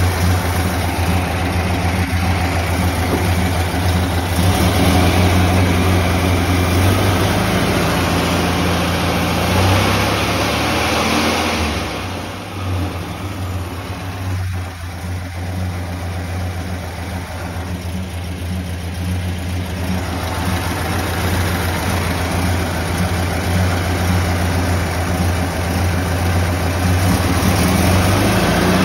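Freshly rebuilt air-cooled VW 1679cc flat-four engine running at a fast idle on its first run after the rebuild. Its speed and level ease off a little about twelve seconds in.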